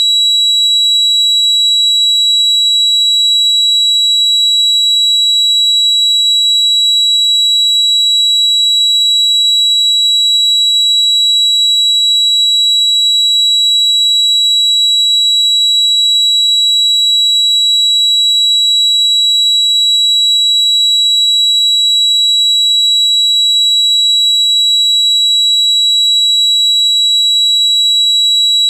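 Tinnitus sound effect: a loud, single high-pitched ringing tone held perfectly steady and unchanging, imitating ringing in the ears.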